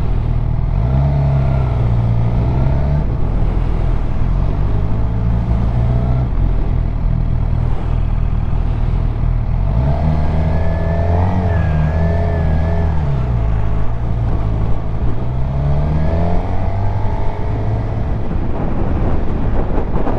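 Suzuki GSX-R750 inline-four engine running under way, its revs rising and falling several times as the rider accelerates and eases off, with a steady rush of wind noise.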